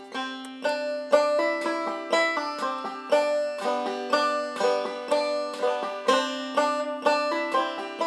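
Banjo music: a single banjo picking a steady, quick run of plucked notes.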